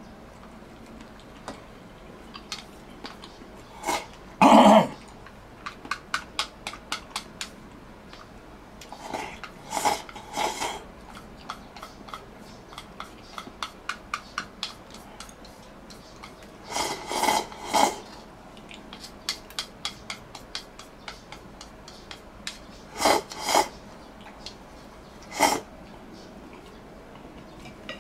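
Eating at the table: utensils clicking and tapping against bowls and dishes in quick runs, broken by a few louder noises, the loudest about four seconds in.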